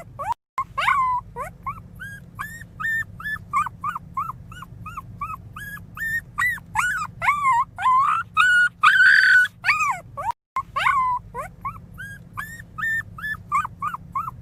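Newborn puppy crying: a rapid string of short, high-pitched squeaking cries, two or three a second, with a few longer, louder wails that rise and fall in pitch about six and nine seconds in.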